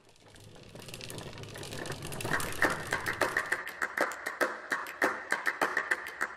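Music fading in from silence: a rhythmic clicking beat of several sharp taps a second over a held high tone, growing steadily louder.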